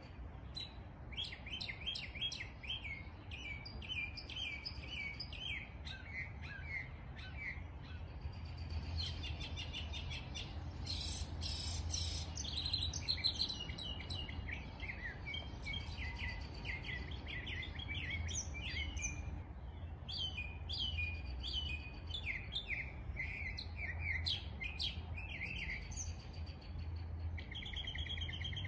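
A chorus of small songbirds chirping and twittering in bare trees, many short high calls in quick series, busiest about halfway through, over a steady low background rumble.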